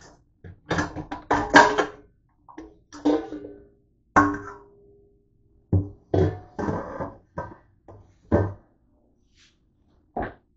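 Stainless steel pans and a metal bowl clattering against each other and a wire dish rack as they are handled, a string of irregular knocks, some leaving a brief metallic ring.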